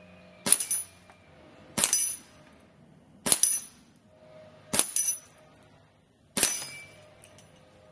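Five .22 air rifle pellets striking a steel spinner target, each a sharp metallic clang with a brief ring as a paddle is knocked over, about a second and a half apart.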